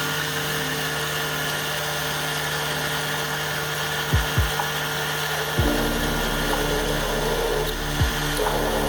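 Small benchtop machine tool's motor running steadily, with a few short low thuds in the second half. Its tone shifts about halfway through.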